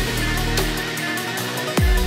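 Background electronic dance music with deep kick drums. The bass thins out about half a second in, and a heavy kick comes back near the end.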